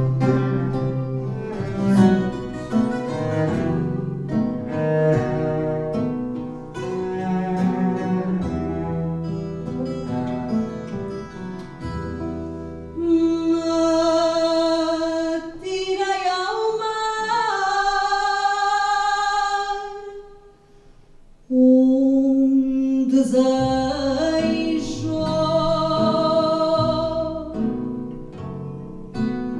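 Small live acoustic band of two acoustic guitars, cello and double bass. The guitars are plucked over low strings for the first dozen seconds, then a woman sings long held notes with vibrato over the band. She breaks off briefly about twenty seconds in, then sings on.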